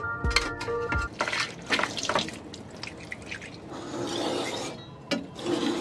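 Background music that stops about a second in, then clinks and wet sounds at a steel galley sink, and from about four seconds in the scrape of a kitchen knife being stroked on a flat sharpening stone.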